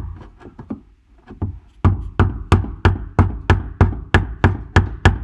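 Screwdriver being knocked against a Honda Civic's fuel pump lock ring to turn it loose. A few scattered taps come first, then from about two seconds in a steady run of sharp knocks, about three a second.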